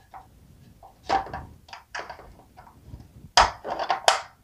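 Hard plastic parts of a Sylvanian Families toy car clicking and knocking as its small steering wheel is pushed into place: a run of short, sharp clicks, the loudest near the end.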